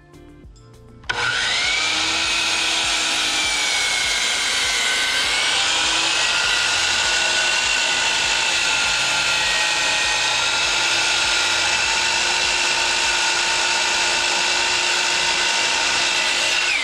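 Miter saw starting about a second in and running steadily for about fifteen seconds with a high whine, cutting into a wooden post to rough out a notch, then winding down at the end.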